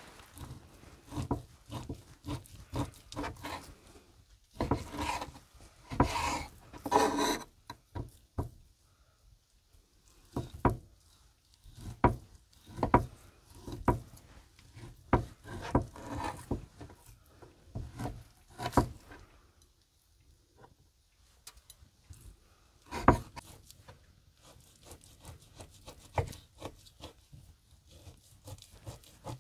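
Kitchen knife slicing raw beef on a wooden cutting board: irregular sawing strokes through the meat and sharp taps of the blade on the board, with one louder knock about three-quarters of the way through.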